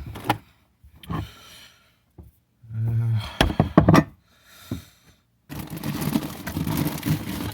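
Rummaging through items in a refrigerator: separate knocks and clicks, a short hum about three seconds in, then a longer stretch of rustling and clattering.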